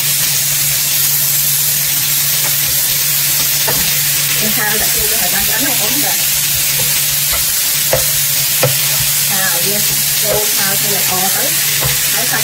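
Pork and mushrooms sizzling in a nonstick frying pan while being stirred and tossed with a plastic spatula. The frying hiss is steady, with the spatula scraping through the food and a few sharper taps against the pan.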